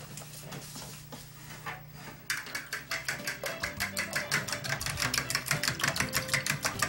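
Fork beating raw eggs in a glass bowl, clicking against the glass in a quick, even rhythm of about five or six strokes a second. The beating starts about two seconds in.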